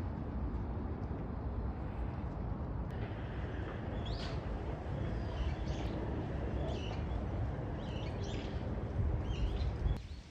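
Small birds giving short chirping calls, a few at a time, repeated from about three seconds in, over a steady low outdoor rumble.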